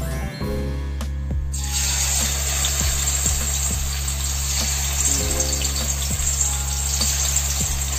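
Marinated chicken pieces frying in hot oil in a wok, a steady dense sizzle that starts suddenly about a second and a half in. Background music plays underneath.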